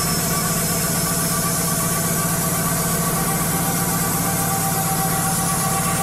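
Wood-Mizer LT35 bandsaw sawmill running steadily while its band blade resaws a kiln-dried red oak board. The blade is dull and running smoking hot in the cut.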